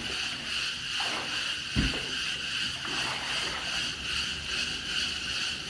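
Swimming-pool water splashing and lapping as a child swims, over a steady high hiss. A single low thump about two seconds in.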